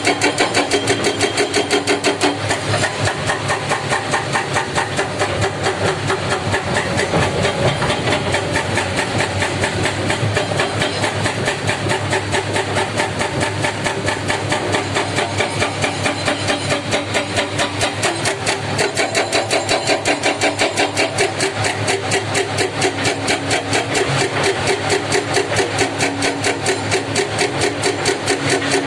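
Komatsu PC300 excavator's diesel engine running steadily with a fast, even pulsing beat, its tone shifting now and then as the machine works under load.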